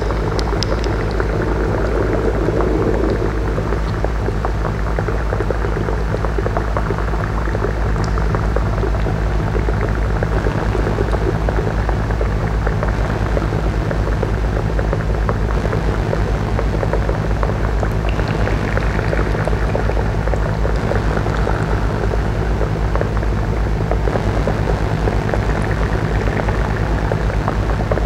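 Live electronic sound-art performance mixed through a console: a steady drone of several held low tones under a dense crackling noise, with no beat.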